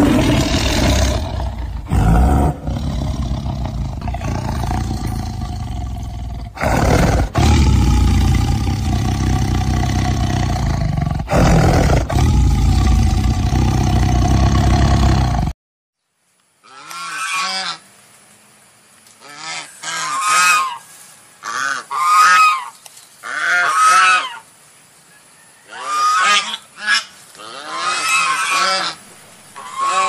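A loud, rough, low sound that cuts off abruptly about halfway through. After a second of silence comes a string of short, repeated pitched calls, about one a second, from a blue-headed parrot.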